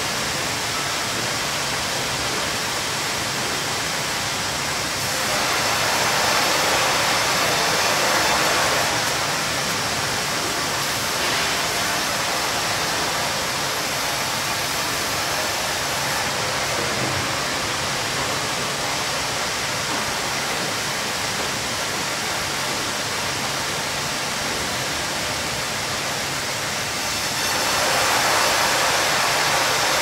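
Sawmill in operation: a steady, dense rush of machinery and saw noise, swelling louder for a few seconds about five seconds in and again near the end.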